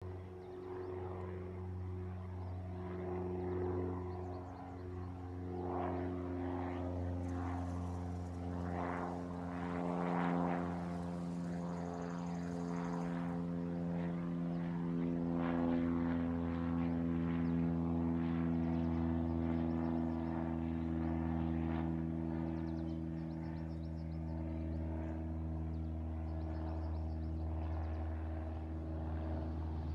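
Cessna 172 Skyhawk flying overhead: its single piston engine and propeller make a steady drone of low, evenly spaced tones. It swells a little around the middle and sinks slightly in pitch as the plane passes.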